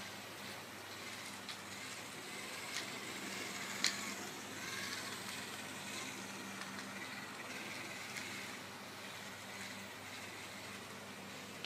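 Small yellow plastic DC gear motors of a two-wheeled line-following robot whirring steadily, their pitch wavering slightly, with a few sharp clicks, the loudest about four seconds in.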